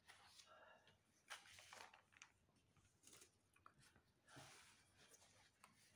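Near silence: room tone with a few faint, short rustles and clicks.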